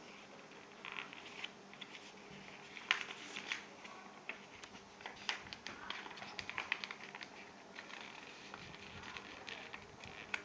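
A sheet of paper rustling and crinkling as it is rolled tightly around a plastic straw to form a tube, with irregular small crackles as the paper is pressed and turned.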